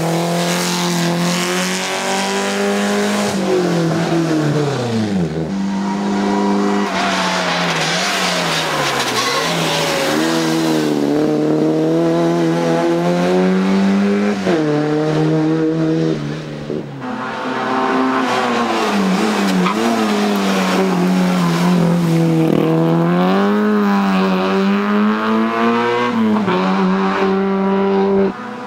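Classic rally cars, among them a Lancia Fulvia coupé and a Mini Cooper, driven hard one after another: engines revving high, pitch climbing and dropping with each gear change and lift-off, with tyre noise in the corners.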